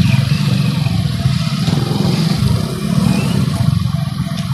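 Small motorcycle engine running at low speed with a steady, pulsing note, growing a little fainter toward the end.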